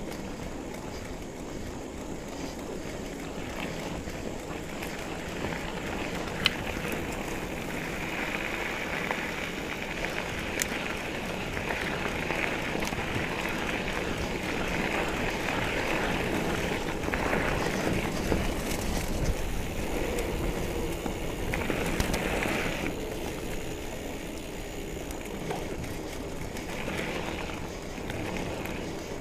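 2017 Trek Remedy 7 full-suspension mountain bike ridden along a dirt trail: tyres rolling and crunching over dirt and gravel with rattling from the bike, swelling and easing as the ground changes, and a few sharp knocks.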